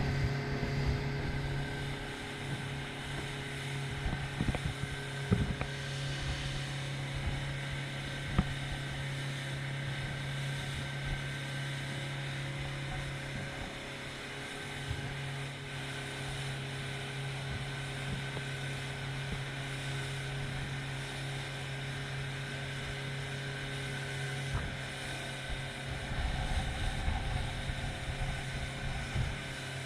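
Boat engine running steadily at a constant pitch while under way, with wind buffeting the microphone. The low engine hum weakens about five seconds before the end.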